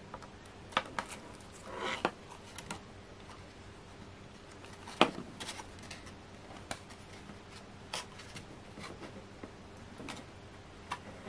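Card stock and paper being handled and pressed together on a craft desk: scattered light taps and clicks with a brief rustle near two seconds in, and one sharper click about five seconds in.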